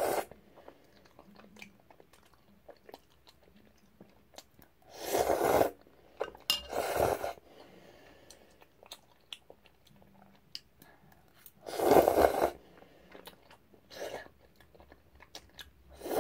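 A person eating jjajang ramyeon noodles: a run of small chewing clicks, with three louder noisy bursts about five, seven and twelve seconds in.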